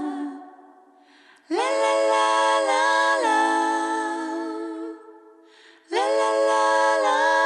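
Background a cappella vocal music: voices singing long held chords in phrases, with a short pause about a second in and another about five seconds in.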